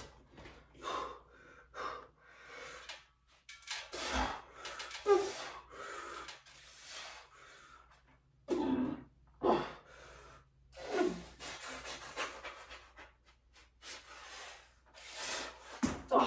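A man breathing hard through a set of weighted bar dips, sharp exhales coming about once a second, with a few strained grunts of effort partway through.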